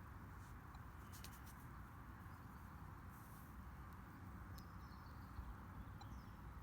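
Very faint outdoor quiet: a steady low wind rumble on the microphone, with a few light scratches and rustles from hands searching through dug soil.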